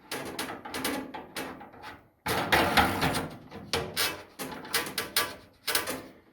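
A nut being threaded on and tightened down onto a boat lid latch, heard as a run of irregular clicks and scrapes, with a longer scraping stretch about two seconds in.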